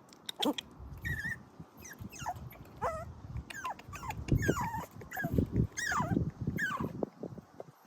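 A dog whining in a run of short, high-pitched calls that each slide down in pitch, about a dozen over several seconds, over low rustling and knocking.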